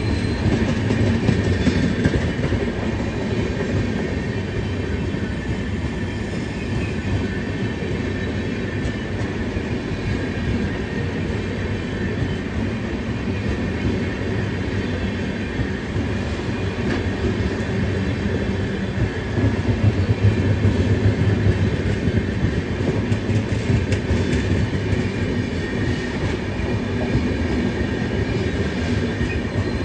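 Coaches of an express passenger train passing close by at speed: a steady, continuous rumble of wheels on the rails, swelling louder about twenty seconds in.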